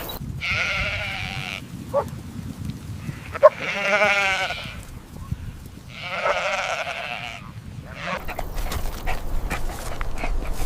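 Three long bleats from a sheep or goat-type farm animal, each with a wavering pitch, with a couple of sharp clicks between them and shuffling footsteps near the end.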